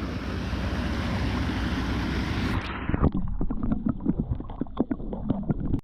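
Creek water rushing as an even noise; about two and a half seconds in it cuts to a stretch of irregular splashing and sloshing water.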